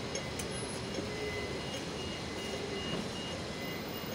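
Steady street traffic noise from vehicles running along a busy city road, with faint high-pitched beeps coming and going.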